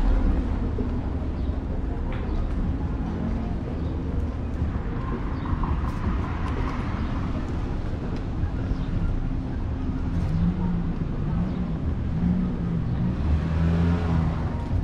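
City street traffic: car engines running and passing, with a steady low hum of vehicles.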